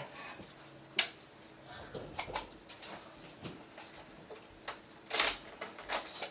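A few scattered sharp clicks and knocks, the loudest about five seconds in.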